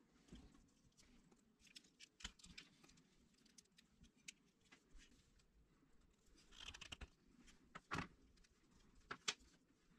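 Faint rustling and scattered light clicks of hands handling and bending the wires on a battery charger's transformer, with two sharper clicks near the end.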